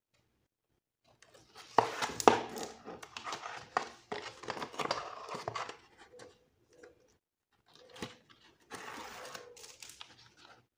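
Release liners being peeled off double-sided adhesive tape and handled, crinkling and tearing with a few sharp snaps. It comes in two bursts, the first starting about two seconds in and the second near the end.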